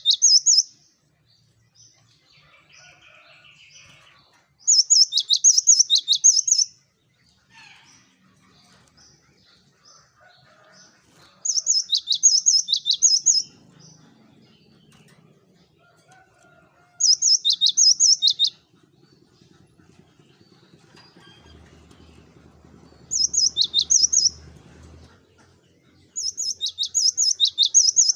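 Cinereous tit (gelatik batu) singing loud bouts of rapid, high repeated notes, each bout about one and a half to two seconds long, coming every few seconds.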